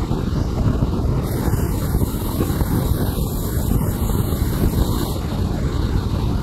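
Band saw running steadily while ripping a neem plank lengthwise, a loud even rumble of motor and blade in the cut.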